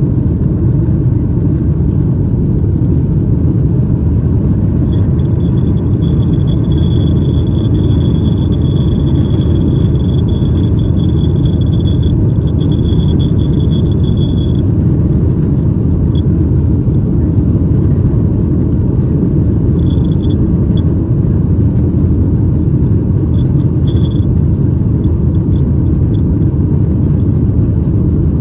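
Steady, loud rumble of a Boeing 737-800's CFM56-7B turbofan engines at climb thrust, heard inside the cabin just after takeoff. A thin high whine sits on top of it for about ten seconds starting about five seconds in, and returns briefly twice later.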